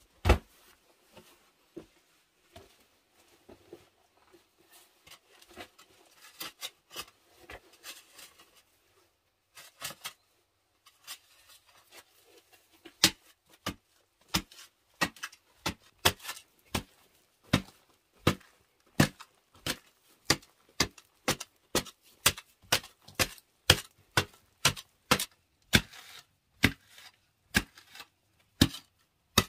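A short-handled digging tool chopping into hard-packed clay soil: after a thud at the start and some light scraping, a steady run of sharp strikes about every two-thirds of a second from about a third of the way in.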